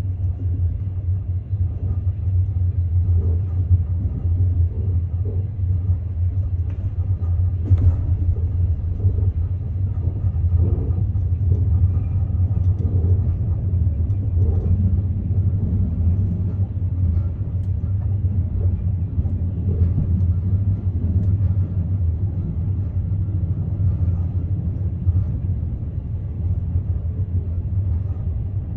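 Steady low rumble of a moving train heard from inside the carriage, with a few faint knocks.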